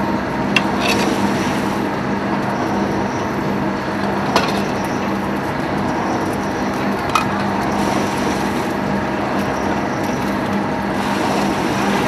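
Tea seed oil press running: a steady mechanical drone with a constant low hum, and three sharp clicks spread through it.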